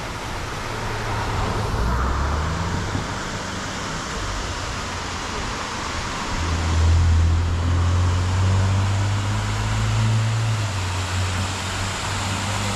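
A motor vehicle's engine running close by, a low hum that swells a little past halfway and then eases, over a steady rush of wind and road noise.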